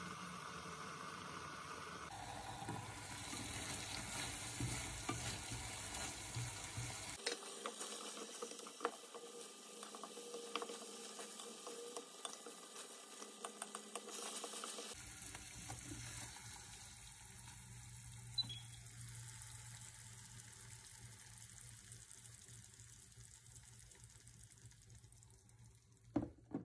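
Meatballs and sliced mushrooms sizzling in a reducing sauce in a small frying pan, turned with chopsticks that click against the pan now and then. The sizzle grows quieter toward the end as the sauce thickens.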